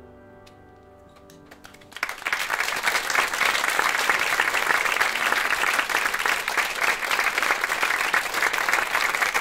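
An upright piano's last chord dying away, then about two seconds in an audience starts applauding and keeps clapping steadily and loudly.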